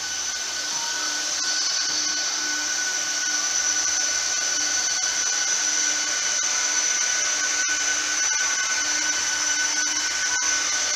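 Cooling fans of an Arista 7150S-52 network switch running: a steady whirring hiss with a constant high whine, growing louder over the first two seconds, then holding level.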